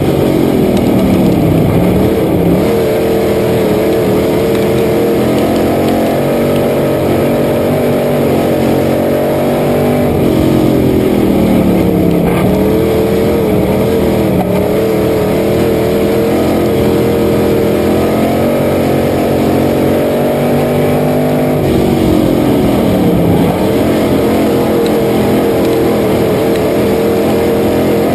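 Dirt-track race car's engine at racing speed, heard from inside the cockpit: its pitch drops as the car lifts off into the turns and climbs again down the straights, three times over.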